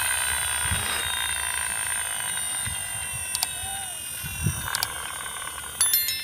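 Toy army jeep held up with its wheels spinning freely: a high, steady whine that slowly fades and sinks a little in pitch as it runs down, with a few light clicks near the end.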